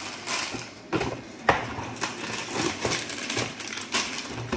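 Clear plastic bags of Lego pieces crinkling and rattling as they are picked up and moved, with a string of sharp irregular clicks from the bricks inside.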